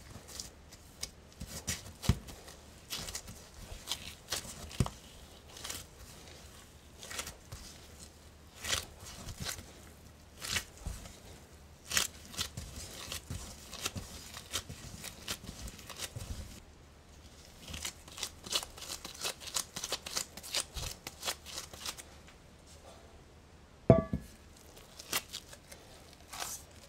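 Sweet yeast dough being kneaded by gloved hands on a silicone baking mat: irregular soft slaps, squishes and the crinkle of disposable gloves. Near the end, a sharp knock with a brief metallic ring as the dough goes into a stainless steel mixing bowl.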